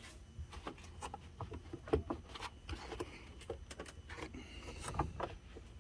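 Plastic intake and engine-bay parts being handled by hand: a string of light clicks, taps and scrapes, with two louder knocks about two seconds and five seconds in.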